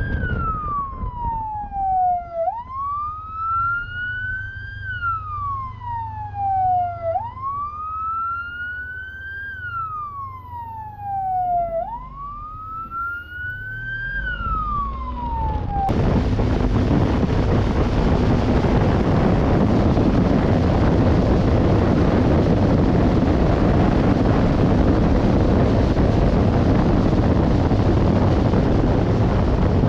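Police motorcycle siren sounding a slow wail, rising and falling about every five seconds over a low engine rumble, then cutting off suddenly a little past halfway. A loud, steady rush of wind and engine noise from the moving motorcycle follows.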